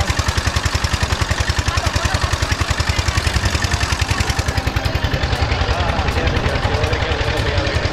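A small engine running steadily at low speed, a rapid even pulsing beat throughout, with faint voices under it.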